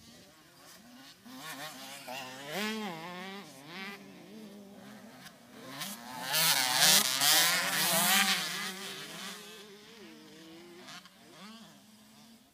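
KTM 85 two-stroke youth motocross bike revving up and down as the rider works the throttle and gears. It is loudest as it passes close about six seconds in, then fades as it rides away.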